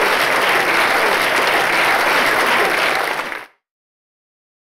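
Audience applauding. The applause cuts off abruptly into dead silence about three and a half seconds in.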